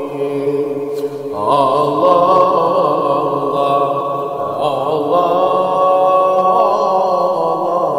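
Chanted devotional hymn (ilahi): long held sung notes over a steady low drone, with a new phrase beginning about a second and a half in.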